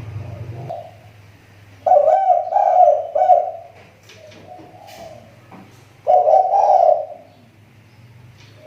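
Spotted dove (tekukur) decoy bird cooing: a loud three-note coo phrase about two seconds in, a fainter coo near the middle, and another loud coo about six seconds in. Its call is recovering after having gone off.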